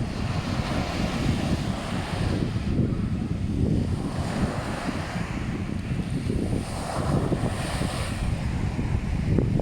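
Sea surf washing in and out, with wind buffeting the microphone in a heavy low rumble. The hiss of the water swells and fades every few seconds.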